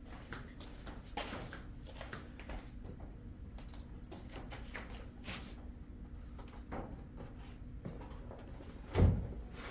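Scattered light rustling and handling knocks over a steady low hum, with one louder thump near the end.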